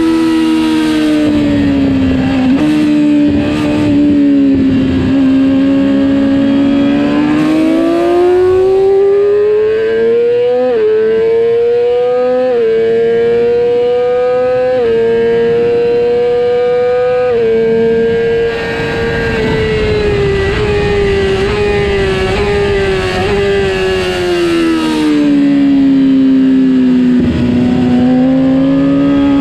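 Yamaha R6's inline-four engine at high revs, heard onboard over wind rush. It climbs in pitch, shifts up three times while staying near the top of the rev range, and holds there for a few seconds. It then winds down steadily over several seconds as the bike slows, and starts to pick up again near the end.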